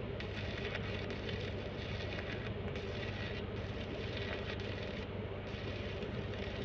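Electric arc welding on a metal lamp post, the arc crackling steadily over a low hum, with a few short breaks in the crackle.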